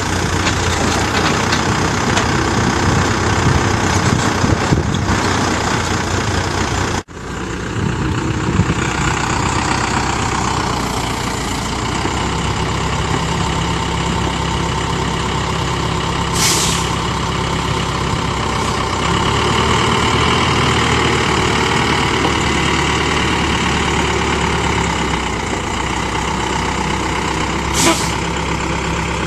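Diesel engine of an XWTM grapple excavator running steadily under load while it lifts and swings a bundle of eucalyptus logs. Two short hisses come in, one about halfway through and one near the end.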